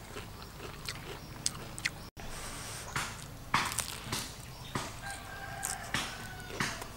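Crisp crunches and clicks of a deep-fried spring roll being bitten into and chewed, the fried wrapper crackling irregularly with each bite.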